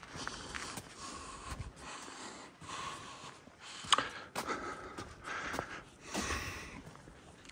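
A walking hiker's breathing, a breath every second or two, with footsteps on a paved trail. There is a sharp click about halfway through.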